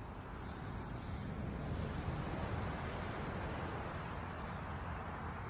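Wind buffeting the microphone: a steady rushing noise with a low rumble, growing a little louder about a second in.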